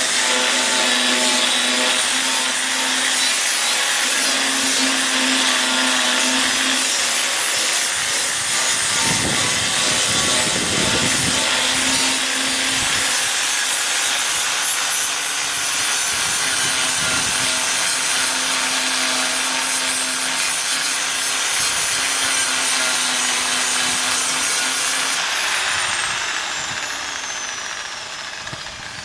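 Angle grinder grinding down welds on a car's steel body panel, its disc rubbing on the metal with a motor hum that comes and goes as the pressure changes. About 25 seconds in it is switched off and the disc winds down with a falling whine.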